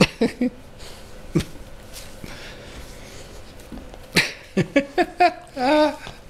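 Puppies yipping in play: a couple of short yips at the start, then a quick run of yips about four seconds in ending in a longer wavering cry.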